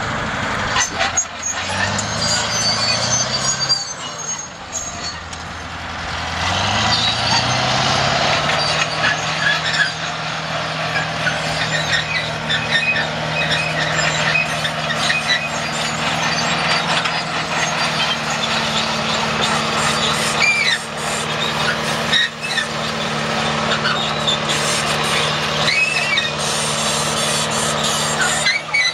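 Heavy construction machine's diesel engine working, its pitch climbing over the first several seconds and then holding steady, with heavy mechanical clatter and a few short high squeals in the second half.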